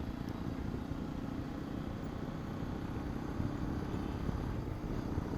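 Hero Xpulse 210 motorcycle's single-cylinder engine running as the bike is ridden: a steady low rumble with no change in pitch.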